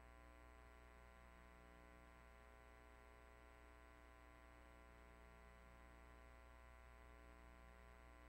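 Near silence: a faint, steady electrical mains hum with many overtones, and nothing else.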